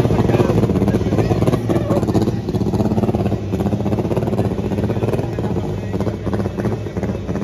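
Drag car engine idling with a steady low rumble while it creeps up to the start line.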